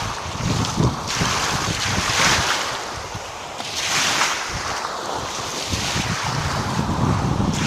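Waves of the Gulf of Finland washing in, with two louder surges about two and four seconds in, over wind buffeting the microphone.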